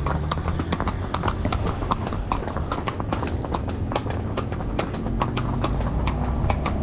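Horses' hooves clip-clopping on a paved stone street, several sharp strikes a second in an uneven rhythm.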